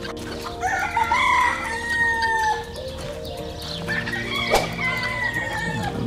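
A rooster crowing twice, each crow about two seconds long, over a steady low hum.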